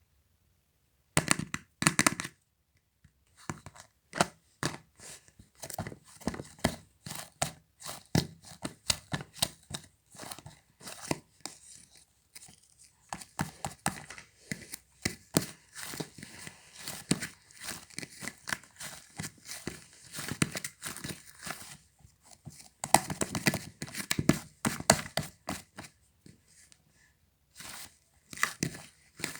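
Dumpling-shaped squishy toy being squeezed and kneaded by hand, its skin crinkling and crackling in quick irregular bursts, with brief pauses.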